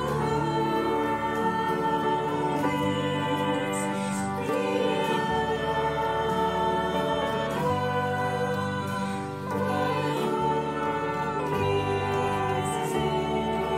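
Worship band playing a song: several voices singing together over acoustic guitars, piano, clarinet and drum kit.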